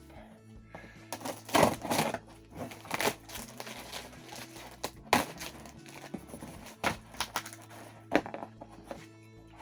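A sellotaped cardboard box being opened by hand: irregular tearing, crinkling and knocking of cardboard and packaging, with the loudest rustles about one and a half to two seconds in and again near five seconds.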